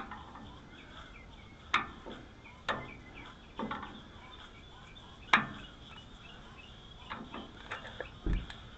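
Scattered sharp clicks and clinks of small metal parts and tools being handled, about eight in all, the loudest about halfway through, with a short low thump near the end.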